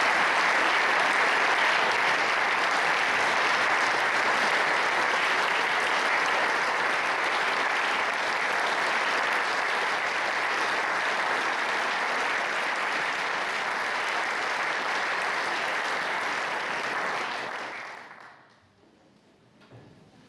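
Audience applauding steadily, then dying away about seventeen seconds in.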